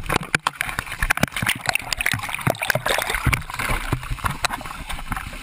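Seawater splashing and sloshing close to the microphone, with many irregular knocks and bumps, as people scramble out of a plane sinking in the ocean.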